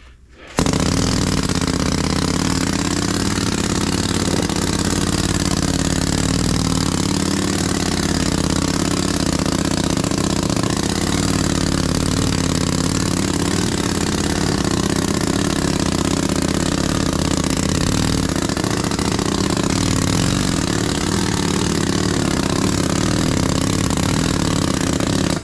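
Pneumatic sand rammer running steadily, hammering moulding sand into a foundry flask to ram up the first layer of a mold. It starts abruptly about half a second in and stops suddenly at the end.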